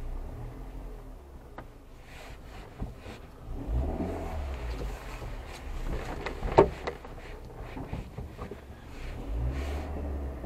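Car engine and road noise heard from inside the cabin while driving slowly, a steady low rumble. A few knocks and clicks come through, the loudest a sharp click about six and a half seconds in.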